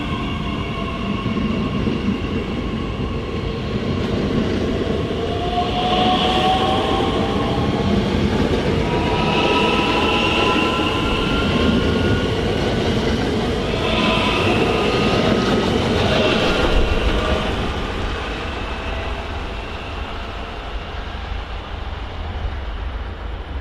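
Electric multiple unit pulling away from the platform, its traction motors giving a whine of several tones that rises in pitch as it gathers speed, over the rumble of the wheels on the rails. The sound fades in the last few seconds as the train draws away.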